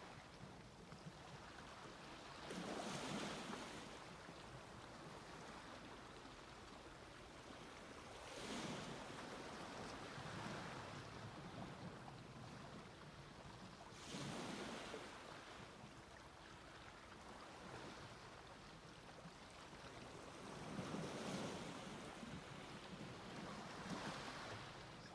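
Sea waves breaking on a beach: four surges roughly six seconds apart, each a quick rush of hiss that fades away, over a quiet steady wash of water.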